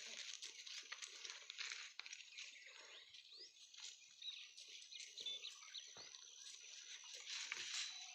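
Quiet goat-pen ambience: scattered rustling and small knocks from the animals, with a few short, high chirps over a steady hiss.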